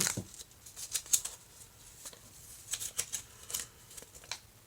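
Hands handling a small plastic gachapon toy and its packaging: irregular light clicks and crinkles, the loudest right at the start.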